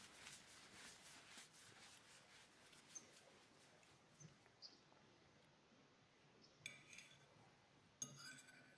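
Near silence with faint hiss and a few soft clicks; near the end, a short scrape of a knife cutting into mustard-smeared toilet paper on a plate.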